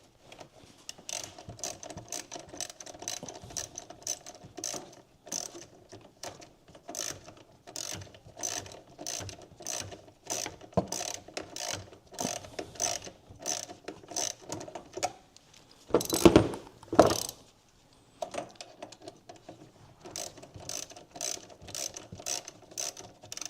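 Socket ratchet clicking in irregular strokes as it tightens a 10 mm bolt. About two-thirds of the way through come two louder knocks, then the ratcheting resumes.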